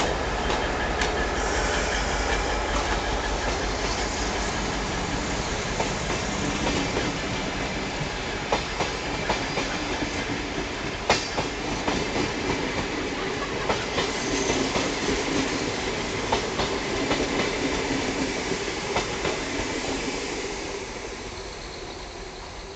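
Train rolling past, its wheels clattering over rail joints with a run of sharp clicks through the middle, then fading away near the end.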